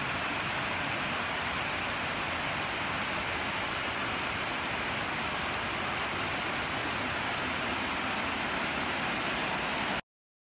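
Steady hiss of rain falling on wet concrete and puddles, which cuts off suddenly near the end.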